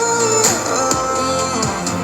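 Instrumental ending of a pop song with guitar, bass and drums, no vocals, played back through an Anker Soundcore Flare 2 Bluetooth speaker.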